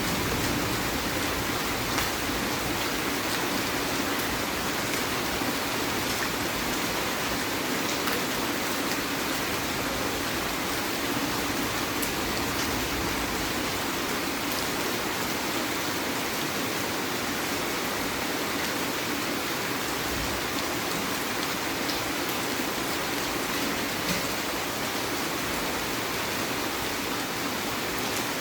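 Heavy rain falling steadily, a dense even hiss with a few sharp drop ticks now and then.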